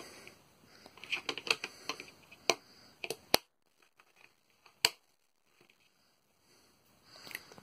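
Steel driver bits clicking and rattling against their plastic storage case as they are handled: a quick run of sharp clicks, two louder single clicks about three and a half and five seconds in, then a few more clicks near the end.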